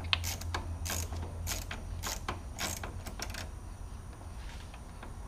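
Ratchet wrench clicking in short uneven runs while tightening the negative battery terminal clamp; the clicks thin out after about three and a half seconds.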